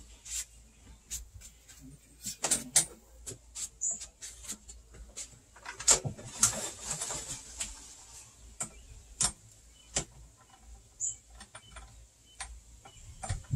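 Irregular clicks, taps and light knocks of metal parts being handled as the handlebar of a Snapper self-propelled walk-behind mower is fitted.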